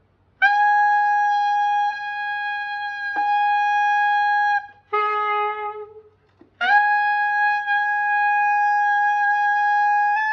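Tenor saxophone played in the altissimo register: a long held high note, a brief lower note about five seconds in, then a second long held high note that steps up slightly in pitch near the end.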